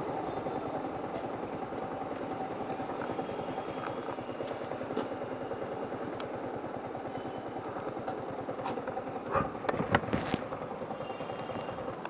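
Yamaha R15 V3's single-cylinder engine running at low, steady revs. It is freshly serviced and feels smooth. A few sharp knocks and clatters sound a couple of seconds before the end.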